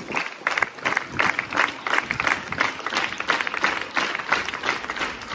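Applause: a group of people clapping their hands.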